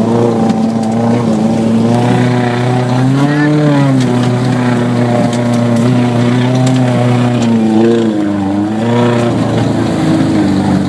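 Maruti Gypsy 4x4 engine running hard under load at fairly steady revs. The pitch rises and falls briefly about three and a half seconds in, then wavers up and down again around eight to nine seconds in as the throttle is worked.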